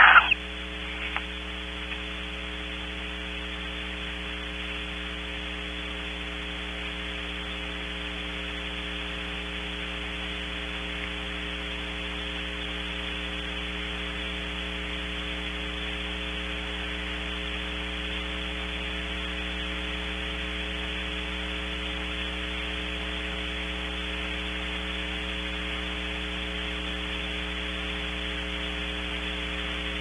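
Steady electrical mains hum with a hiss, a set of constant buzzing tones that never changes: noise in the nest-box camera's audio feed.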